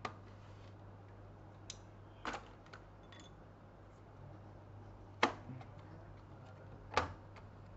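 Sharp clicks and knocks of laptop parts being handled during disassembly, the two loudest about five and seven seconds in, over a low steady hum.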